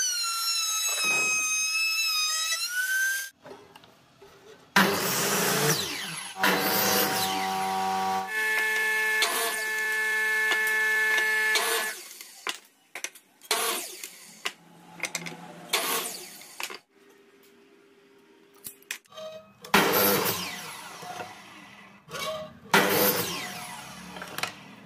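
A table-mounted router running with a high whine that bends in pitch as it cuts old pine, for the first three seconds. Then a miter saw crosscutting pine boards: several sudden cuts, each dying away after the blade clears, with a stretch of steady motor whine between them and wood knocking as pieces are moved.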